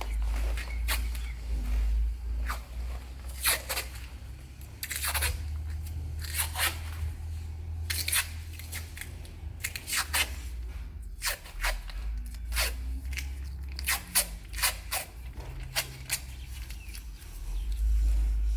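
Irregular sharp clicks, scrapes and crunches of work on plastic plumbing pipe and fittings, over a low rumble.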